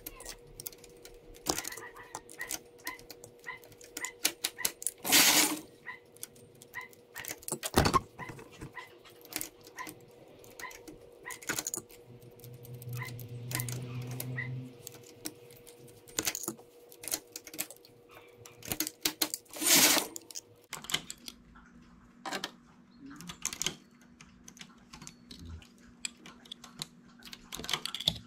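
Metal needles and latches of a domestic knitting machine clicking as stitches are lifted and moved by hand with a transfer tool, in an irregular patter of small clicks. Two louder swishes come about five and twenty seconds in.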